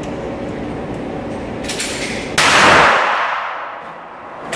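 A single pistol shot about two and a half seconds in, loud and sudden, with a short echo in the indoor range, over a steady background noise.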